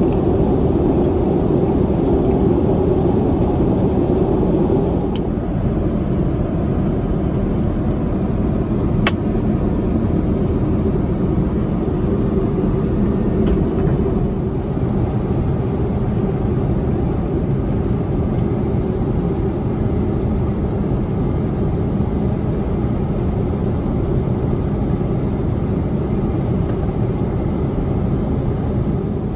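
Steady cabin noise of an Airbus A350-900 at cruise: a constant low rush of airflow and engine hum, with a couple of light clicks near the start.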